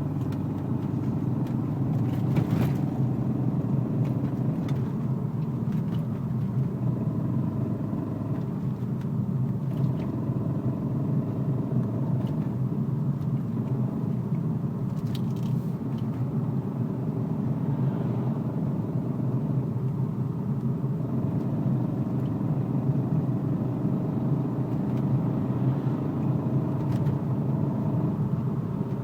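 BMW E46 318ci with its four-cylinder engine running, a steady drone throughout, with a few faint clicks scattered through it. The clicking comes from the rear end under throttle and is growing louder, which the owner suspects is the differential.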